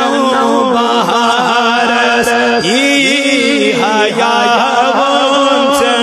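A man singing a Kashmiri naat solo, a continuous chanted melodic line with wavering ornaments on the held notes.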